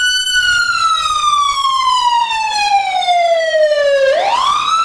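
A wailing siren whose pitch falls slowly for about four seconds, then sweeps quickly back up and holds near the end.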